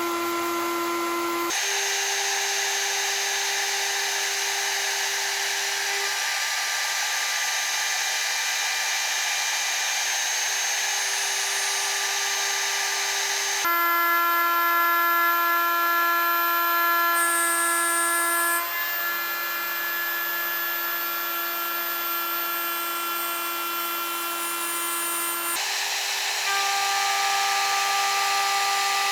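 CNC milling spindle running an end mill through stock: a steady whine of several steady tones over a constant cutting noise. The pitch and sound change abruptly three times, a second or two in, about halfway and near the end, as one milling pass gives way to another.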